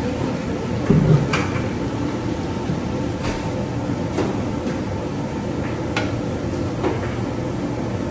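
Long metal spatula stirring and scraping through a large wok of noodles, knocking against the wok now and then in scattered clanks, the loudest about a second in, over a steady kitchen hum.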